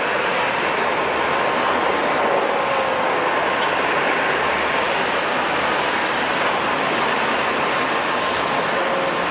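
Jet airliner engine noise: a steady roar with a thin high whine through it.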